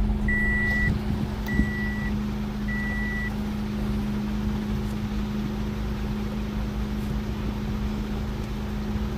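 A 2005 Toyota Corolla's engine running with a steady hum; the number-3 ignition coil has been diagnosed as shorted (code P1310). Near the start, a dashboard warning chime beeps three times, about once a second.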